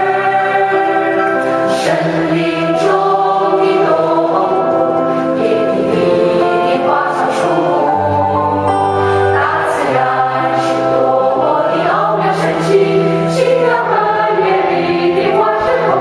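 Music with a choir singing a melody over long held bass notes, the accompaniment for a group exercise dance routine.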